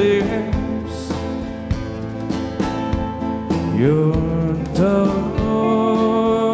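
Live country band playing: a male lead vocal sliding up into long held notes over strummed acoustic guitar and a steady drumbeat.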